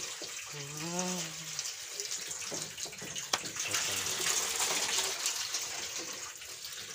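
Water gushing from a hand water pump's spout and splashing onto wet concrete, a steady rushing that runs on without a break.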